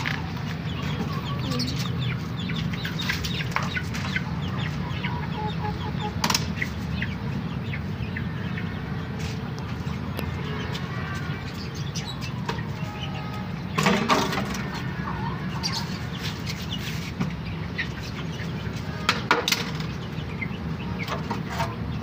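Domestic chickens clucking now and then over a steady low background noise, with scattered short knocks and a louder brief sound about two-thirds of the way through.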